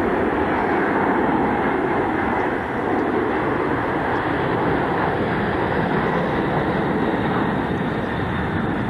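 McDonnell Douglas C-17 Globemaster III's four turbofan engines, a loud steady jet rumble as the big transport banks past in a display turn.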